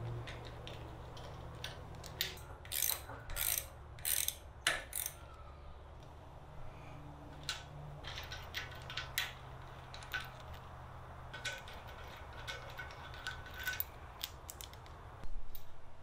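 Metal-on-metal clicking and rattling as an aluminium handlebar riser clamp and its steel bolts are handled and fitted to a pocket-bike fork's top clamp. A quick run of about half a dozen sharp clicks comes a few seconds in, lighter scattered clicks follow, and a louder knock comes near the end.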